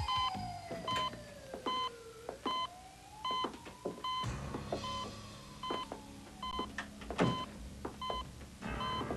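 Hospital heart monitor beeping steadily, with a short electronic beep about every 0.7 seconds, over a slow gliding tone that falls, rises again and slowly sinks.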